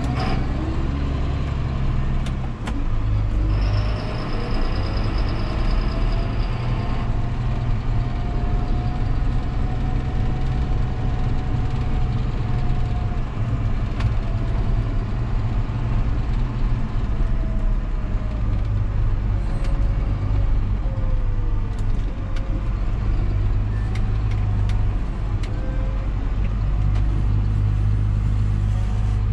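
John Deere 6930 tractor's six-cylinder diesel engine running steadily, pulling a Väderstad Cultus 350 cultivator, with a faint whine that wavers in pitch over the engine note. From about four to seven seconds in, a high whine joins it.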